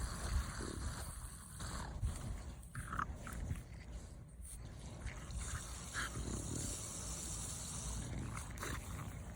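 A dog playing with the spray from a garden hose: running water with the dog's own sounds, a few short sharp ones about three and six seconds in.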